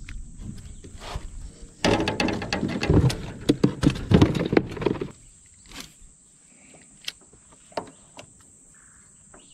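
A bluegill is put into a plastic cooler and thrashes and clatters inside it for about three seconds. A steady high-pitched drone of insects runs underneath.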